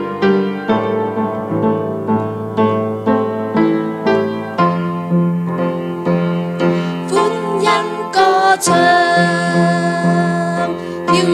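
Piano accompaniment playing the introduction of a worship song with struck notes in a steady beat. A voice comes in singing about seven seconds in, wavering, and holds one long note near the end.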